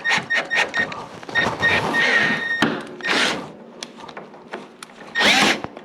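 Power drill whining as it bores into a plastic piece: several short trigger pulses, then a steady run of about a second that stops about two and a half seconds in. Two loud breathy rushes of noise follow, the louder one near the end.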